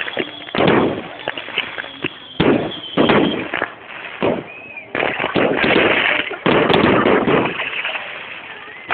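Aerial fireworks exploding: a series of sharp bangs from bursting shells, then a dense stretch of rapid crackling bangs about five to eight seconds in.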